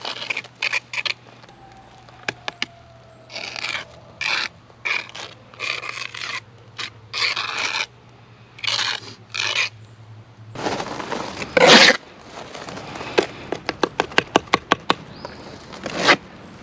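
Steel trowel scraping mortar across stone veneer and block in short, irregular strokes. About two thirds of the way through comes a quick run of sharp taps.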